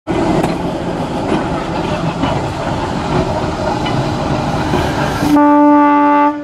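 Small centre-cab diesel switcher locomotive moving slowly, its engine running with occasional clicks from the wheels on the track, then one steady horn blast starting a little over five seconds in and stopping just before the end.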